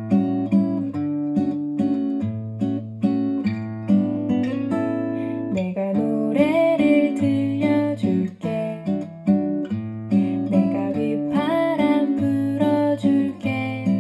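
Recorded song with strummed acoustic guitar, with a singing voice entering about halfway through, played back through a 300B single-ended tube amplifier and homemade speakers with coaxial drivers.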